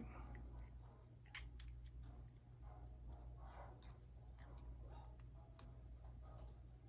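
Faint, scattered clicks and scratches of a lock pick and tension wrench working the wafers inside an old Corbin Husky wafer padlock.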